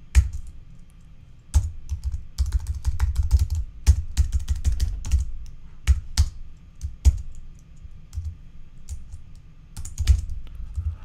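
Typing on a computer keyboard: a quick run of keystrokes from about a second and a half to five seconds in, then scattered single key taps.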